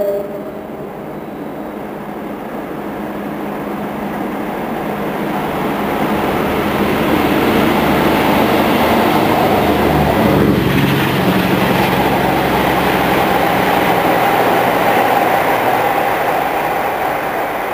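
Diesel locomotive convoy passing under power, led by a Class 47, with Class 52 Western D1062's twin Maybach engines working hard. The engine sound builds steadily, is loudest as the locomotives pass about halfway through, then eases slightly.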